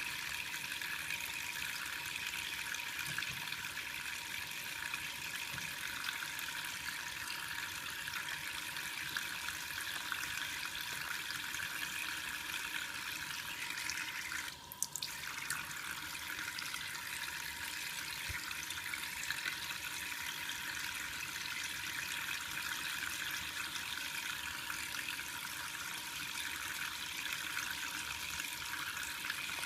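Shaving brush working Col. Conk shaving soap into a lather: a steady wet, frothy swishing that stops briefly about halfway through.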